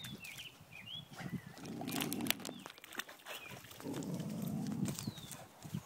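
Boxer dog snorting and breathing noisily close to the phone, in two stretches of about a second each.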